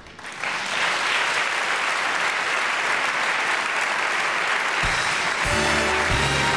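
Large audience applauding steadily. About five seconds in, music with a low bass line comes in under the applause.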